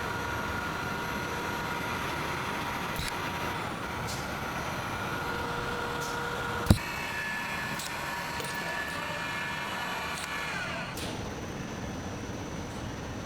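Factory machinery running: a steady mechanical noise with high whining tones. A sharp click comes about halfway, after which the whine shifts higher and briefly falls in pitch.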